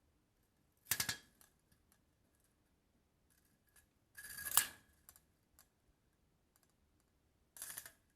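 Window blinds being handled: three short rattling, clicking bursts about a second in, midway and near the end. The middle one is the longest and loudest, with small clicks in between.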